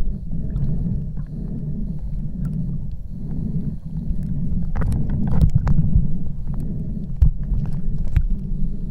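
Muffled low rumble of sea water moving around a camera held underwater, with scattered sharp clicks and pops, most of them around the middle.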